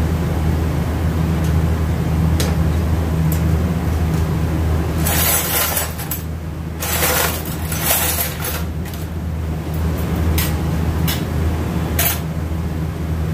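Metal automatic transmission parts being handled on a steel workbench: a few sharp clinks, then two longer stretches of scraping and rattling about five and eight seconds in, and more clinks near the end, over a steady low background hum.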